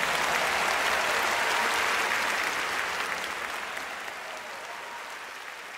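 A crowd applauding, the clapping fading out gradually over the last few seconds.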